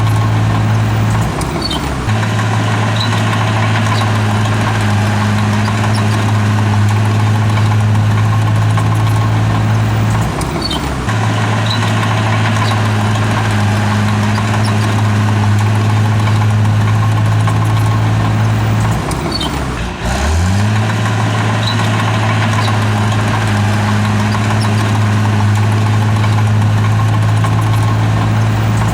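Bulldozer's diesel engine running steadily. Its note sags briefly three times, about 1.5, 10 and 19 seconds in, climbing back up each time.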